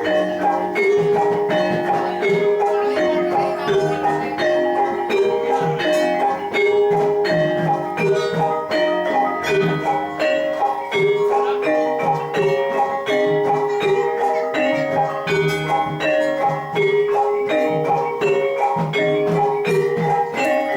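Javanese gamelan ensemble playing jathilan accompaniment: bronze metallophones strike a fast, repeating melody over a steady rhythm of sharp strokes and a low bass line.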